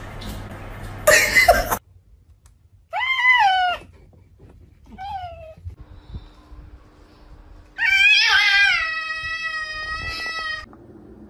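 A domestic cat meowing: a short meow about three seconds in, a faint one about two seconds later, then a long, drawn-out yowl of nearly three seconds. Before the meows, a loud noisy burst lasting under a second.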